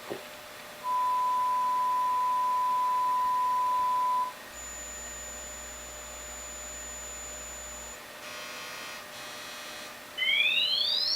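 Electronic test tones from a Zen Triode single-ended tube amplifier measurement. A steady 1 kHz sine tone plays for about three and a half seconds. Next comes a high tone held together with a low one, then two short buzzy bursts. Near the end a fast rising sweep begins. A faint hum runs underneath.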